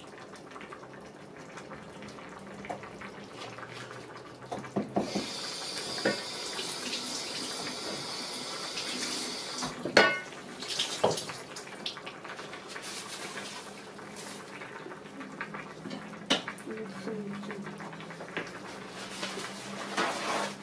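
Kitchen work: water runs from a tap for about five seconds, stopped with a sharp knock, amid scattered clinks and knocks of pots, bowls and utensils.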